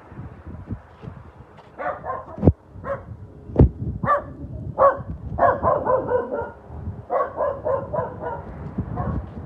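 Dog barking in quick runs of short barks, starting about two seconds in, with wind buffeting the microphone in low thumps.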